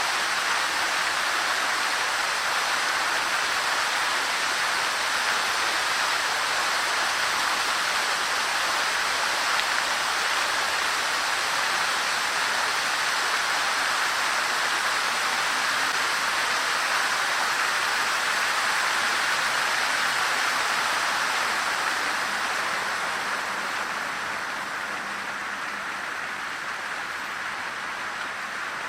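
Water from a statue fountain falling and splashing in a steady rush, dropping slightly in level near the end.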